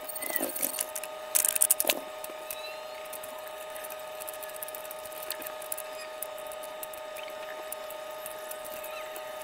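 Small metal Meccano parts clicking and clattering as they are handled and set down, with a quick run of louder clinks about a second and a half in, over a steady high-pitched hum.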